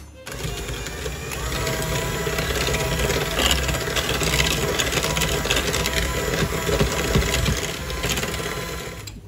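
Electric hand mixer running steadily, its beaters whipping molasses into a creamed butter-and-sugar mixture in a bowl. It starts just after the beginning and winds down near the end.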